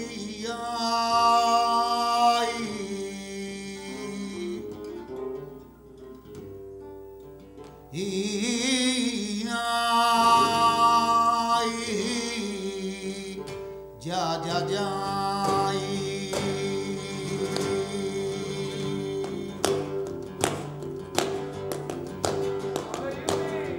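Flamenco siguiriyas: a male cantaor sings two long, wavering phrases over flamenco guitar, with a quieter gap between them. After the second phrase the guitar carries on alone, with a run of sharp clicks in the last few seconds.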